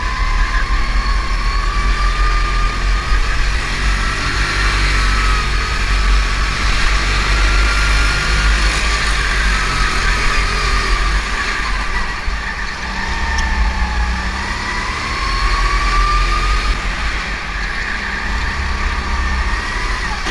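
Go-kart's motor heard onboard, its pitch climbing and dropping over and over as the kart accelerates and slows through the corners, over a heavy low wind rumble on the camera microphone.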